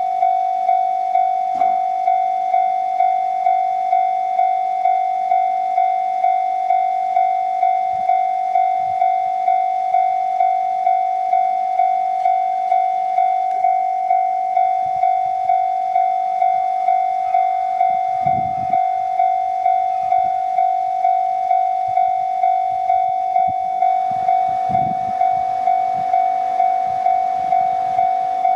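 Japanese railway level-crossing warning bell ringing in steady, evenly repeated strokes, signalling that a train is approaching. A second, lower-pitched alarm tone joins in about 24 seconds in.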